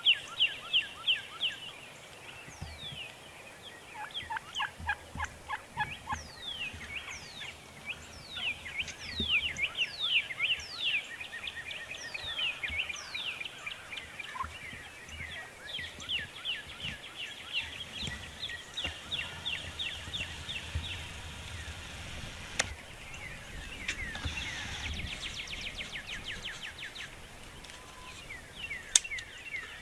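Wild turkeys gobbling and calling: several rapid, rattling runs of notes and stretches of quick falling notes, repeated over and over. A sharp click stands out near the end.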